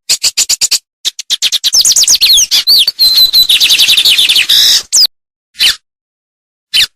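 A songbird singing a fast, varied song of high chirps, trills and down-slurred whistles. The song is densest in the middle, with a short held whistle, and thins to single sharp notes near the end.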